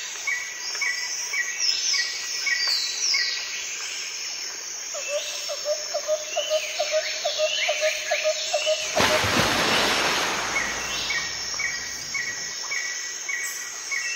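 Birds chirping and calling, with quick repeated notes and short falling whistles, over a steady insect trill. About nine seconds in a loud rush of noise rises and holds for around five seconds.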